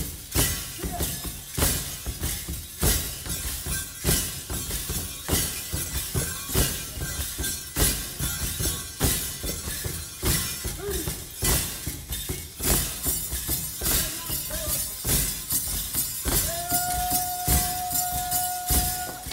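Metal ankle rattles worn by Geerewol dancers, jingling in a steady beat: a strong stroke about every second and a quarter as the dancers stamp forward with the right foot, and lighter jingles between. About three seconds before the end a voice comes in, holding one long sung note.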